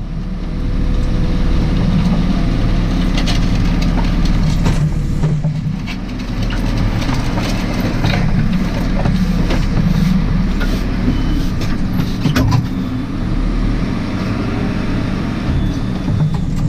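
JCB 4CX backhoe loader's diesel engine running steadily at working revs, with a few sharp knocks.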